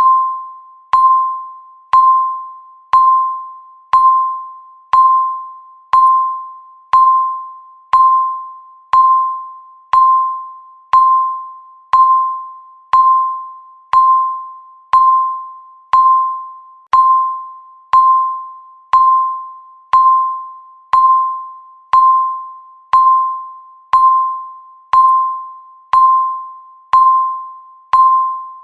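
Countdown timer beeping once a second: each beep is a single electronic tone that starts sharply and fades away before the next.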